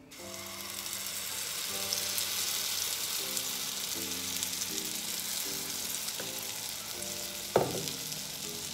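Pancake batter sizzling as it is poured into hot melted butter in a small frying pan, a steady hiss that sets in the moment the batter hits the pan. A single sharp knock comes near the end.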